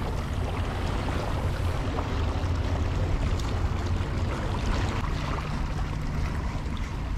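Wind on the microphone over small sea waves lapping at the rocks, with short splashes from a hooked fish thrashing at the surface.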